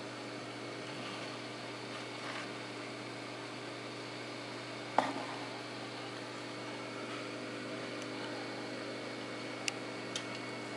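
Steady low electric hum of a small aquarium internal filter, with one sharp click about five seconds in and two fainter ticks near the end.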